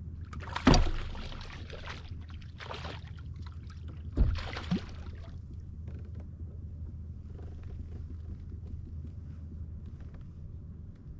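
Two sharp knocks on a kayak's hull, about a second and four seconds in, each followed by a brief splash or rustle, over a steady low rumble.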